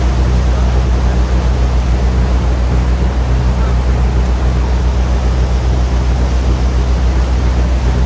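A boat engine running steadily under heavy wind and rushing water noise, as heard on board a motorboat under way.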